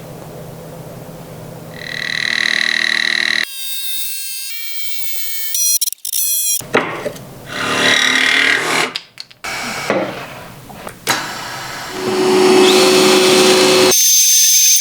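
A run of short workshop tool sounds cut one after another, changing abruptly every second or two. Near the end, a power tool runs steadily with a hum.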